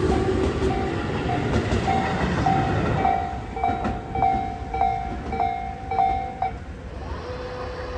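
Tobu 8000 series train running at the station, its rumble fading after about three seconds. Over it, a bell-like ding repeats a little under twice a second and stops about six and a half seconds in.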